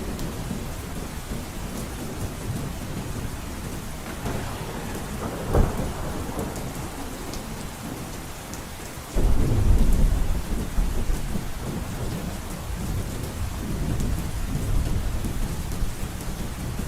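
Heavy rain beating steadily on a roof. A sharp crack of thunder comes about five and a half seconds in, and a loud, low thunder rumble breaks in suddenly about nine seconds in and slowly fades.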